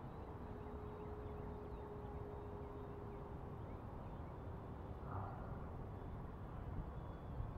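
A faint low rumble and hiss with a faint steady hum that sinks slightly in pitch: the 90 mm Stinger electric ducted-fan jet flying at a distance.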